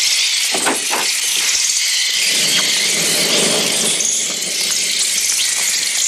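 Loud, dense, unbroken shrieking and twittering of a swarm of small birds flying about a room, high-pitched. These are the film's electronically produced bird cries, made on the Mixtur-Trautonium.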